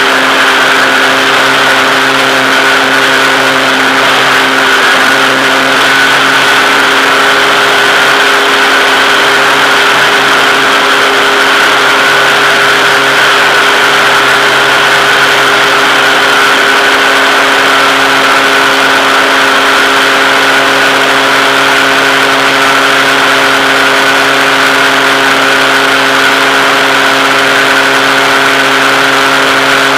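Model aircraft's motor and propeller heard from the onboard FPV camera, a loud steady hum at an even pitch over a constant hiss of rushing air.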